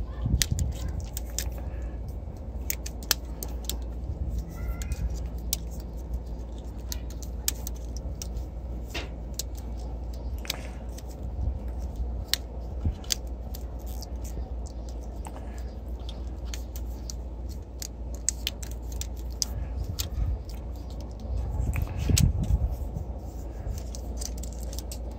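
Irregular sharp clicks and light taps of small tools and parts being handled, over a steady low hum. A louder, brief low rumble comes about 22 seconds in.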